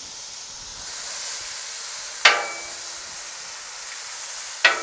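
Mushrooms sizzling on a Blackstone flat-top griddle, a steady hiss, with two sharp metallic clinks that ring briefly, about two seconds in and near the end.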